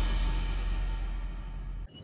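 The fading tail of the intro theme music: a low, ringing decay that dies away and cuts off just before the end.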